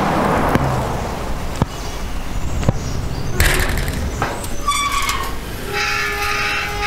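Street traffic noise with three sharp knocks about a second apart, then a horn sounding in held tones through the second half.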